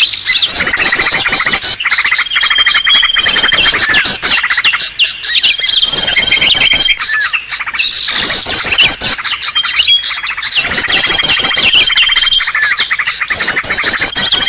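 Green leafbird (cucak ijo) calling agitatedly: dense, rapid chattering chirps and trills, with a long level whistle recurring every few seconds. It is a loud lure-call recording made to draw wild leafbirds in.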